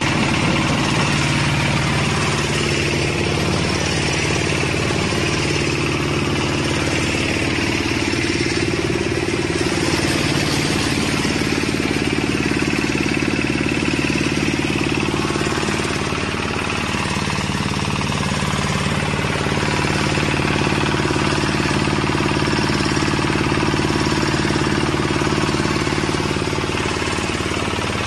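Rice milling machine, a combined cleaner, husker and mill, running steadily: a constant low hum with an even hiss over it as grain passes through.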